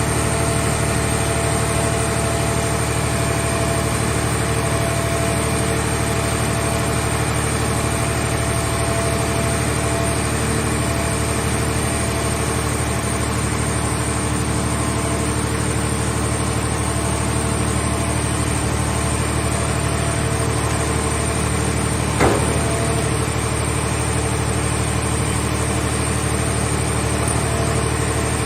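Portable hydraulic scrap-car baler's power unit running with a steady engine hum, with a single sharp knock about three-quarters of the way through.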